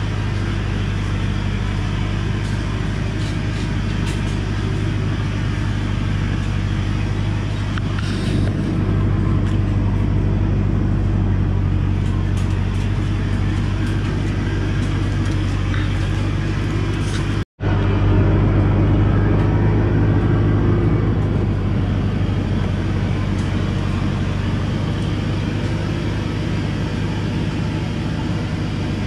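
Diesel engine of a Thaco Forland truck loaded with acacia logs, running with a steady low drone as it crawls along a rough dirt track. The sound cuts out for an instant just past halfway.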